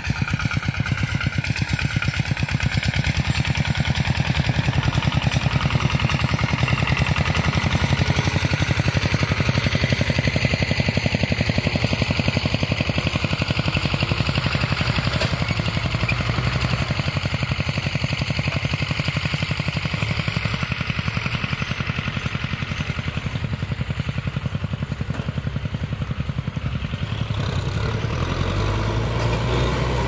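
Diesel farm tractor engine running steadily under load, with a fast, even chugging. Near the end the low engine sound grows fuller as the Kubota M6040 pulling the harrow comes close.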